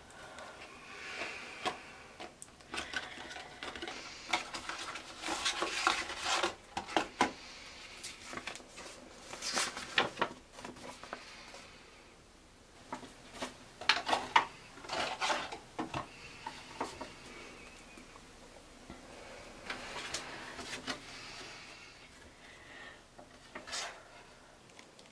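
Paper rustling and crinkling as a pregnancy test's instruction leaflet is unfolded and handled, with clicks and taps from its cardboard box, coming in several bursts with quieter gaps between.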